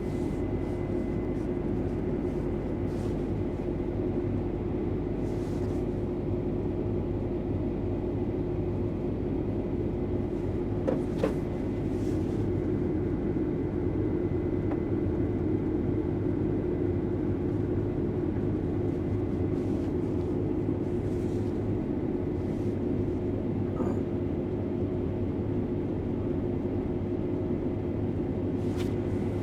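Case tractor's diesel engine running steadily under load, pulling a grain cart, as a constant drone with fixed tones. A couple of faint clicks come about eleven seconds in.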